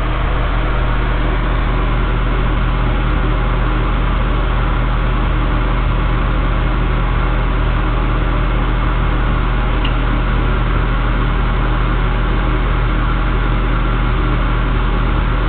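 A hamster's plastic exercise wheel spinning, giving a loud, steady whirring hum with a low drone underneath.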